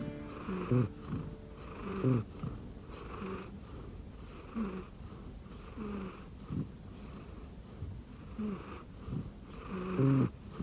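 A sleeping cat snoring: rhythmic breathy snores about once a second, with short pitched snorts on several of the breaths.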